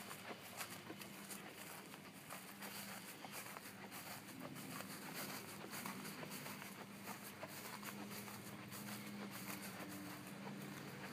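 Footsteps on grass with light tapping and handling clicks, over a faint steady low hum that starts about four seconds in.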